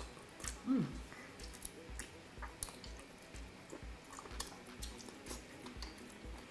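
Close-miked wet chewing of cooked octopus, with scattered small clicks, squelches and lip smacks and a short 'mm' under a second in. A faint low beat pulses about twice a second underneath.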